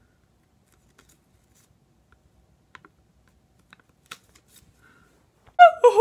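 Faint crinkles and small crackles of a folded paper slip being pulled out and unfolded by hand. Near the end a loud voice cuts in, its pitch sliding up and down.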